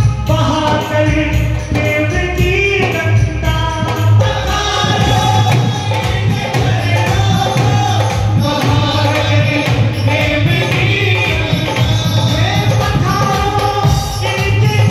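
Devotional bhajan sung live by a man into a microphone, over loud amplified accompaniment with a steady beat, played through PA loudspeakers.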